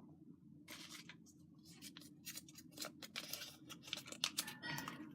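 Small folded paper slips rustling and crinkling as they are handled and unfolded, in a run of short, irregular crackles.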